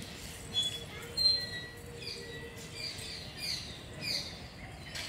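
Small birds chirping: quick, falling chirps repeat several times a second, with a short, louder high note about a second in.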